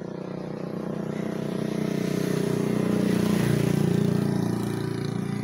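An engine running steadily with a low, even hum. It grows louder around the middle and eases off near the end.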